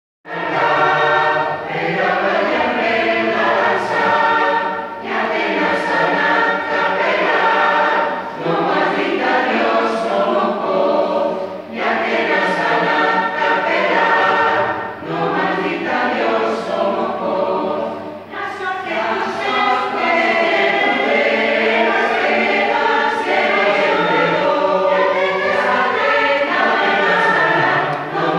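Mixed choir of women's and men's voices singing together, in phrases of about three seconds with short breaths between them.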